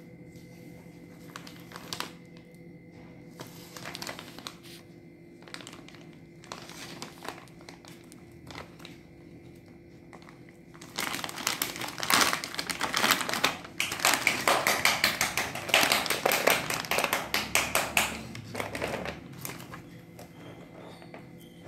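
Shiny metallised plastic pen packet being handled and torn open: scattered taps and short rustles at first, then loud, dense crinkling for about eight seconds from about halfway through.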